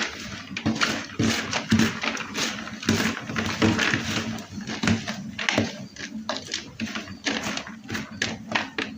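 Freshly shredded cabbage, carrot and onion being tossed together in a bowl: irregular rustling and crackling of the raw vegetables.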